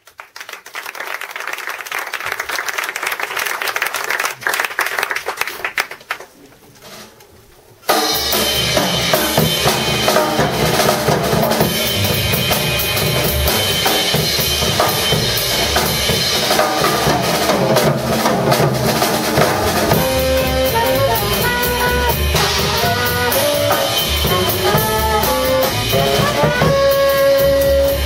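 A live jazz quartet of tenor saxophone, trumpet, double bass and drum kit comes in suddenly about eight seconds in and plays together, the horns holding notes and playing lines over the drums and bass. Before that there is a noisy wash that swells for several seconds, then a short lull.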